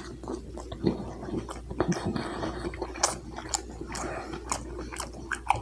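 Close-up chewing of a mouthful of Polish sausage, with frequent short wet smacks and clicks of the mouth.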